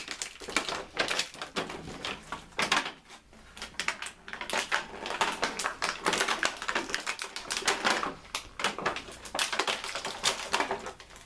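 Dense, irregular clicking and crackling of hard plastic as toy packaging and plastic Bakugan pieces are handled and opened.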